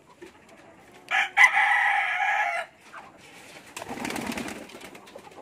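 A rooster crows once, a loud held call lasting about a second and a half. About a second later, a pigeon flaps its wings as it takes off.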